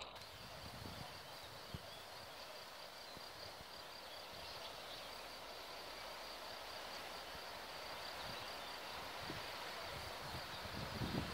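Steady outdoor hiss with a faint high, even buzz throughout, and a few low rumbles near the end.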